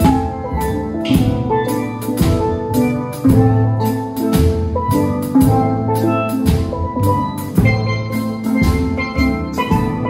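Steel pan ensemble playing a tune, bright ringing notes over sustained low bass-pan notes, with drums keeping a steady beat.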